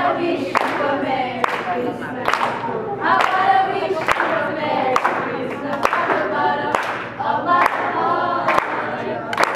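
A group of young voices singing a Christmas carol together, with hand claps in time about once a second.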